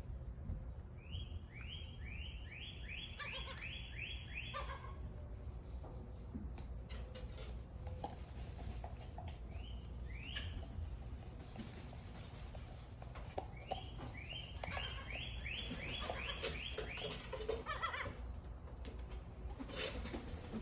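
A bird calling in two runs of quick upward-sliding notes, about three a second, each run lasting three to four seconds, with a single note or two between the runs. A steady low rumble runs underneath.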